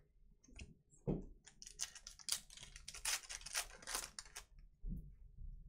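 Foil wrapper of a 2020 Donruss Elite football card pack being torn open and crinkled by hand: a dense run of crackling from about a second and a half in to about four and a half seconds, with softer rustles and taps of cards around it.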